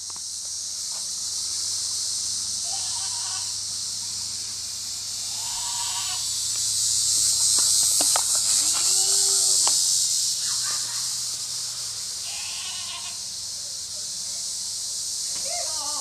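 Short, shrill, distant calls or shrieks, one every two or three seconds, over a loud steady high-pitched hiss. A few sharp clicks come near the middle.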